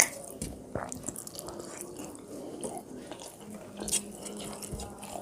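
Close-up eating sounds during a meal of rice and fish curry: chewing and mouth clicks, with a sharper click right at the start and another about four seconds in.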